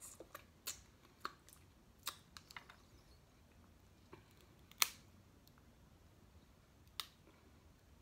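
Snow crab leg shells cracked and snapped apart by hand: a scatter of sharp cracks and clicks, the loudest just under five seconds in and another at about seven seconds.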